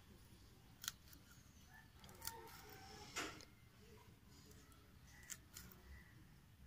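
Bypass pruning shears snipping through soft tomato stems and leaf stalks: four quiet, sharp snips a second or so apart, the longest about three seconds in.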